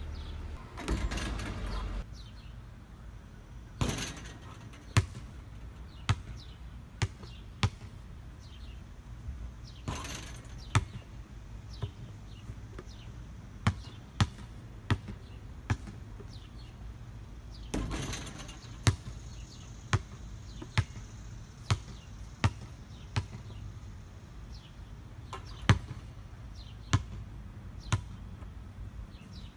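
A basketball dribbled on an asphalt driveway: sharp single bounces about a second apart, in runs broken by short pauses, with a few longer rougher noises in between.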